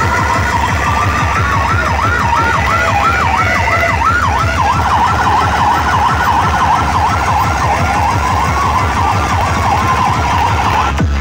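Loud siren sound effect played through a DJ sound system over a fast low bass thump: a rapid yelp of about four rising-and-falling sweeps a second, then a slower wail, until the full dance track drops in near the end.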